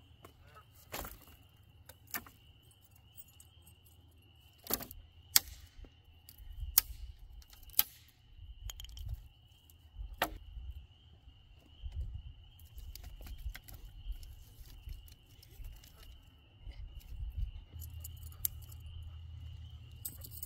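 Dry dead branches knocking and cracking as they are dragged and handled beside a campfire: scattered sharp cracks, the loudest about five seconds in. Under them run a steady thin high tone and a low rumble.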